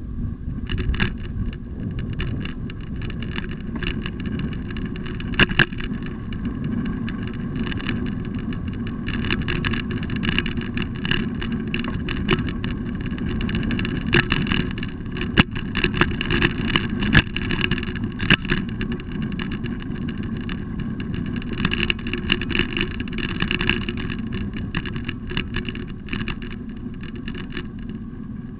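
Bicycle rolling over brick and paved surfaces: a steady low rumble of tyres and frame, broken by sharp rattles and knocks as it goes over bumps, clustered around five seconds in and again in the middle.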